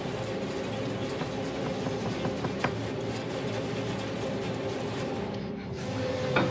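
Tense film score, a dense sustained dissonant texture holding steady tones, with one sharp click about two and a half seconds in.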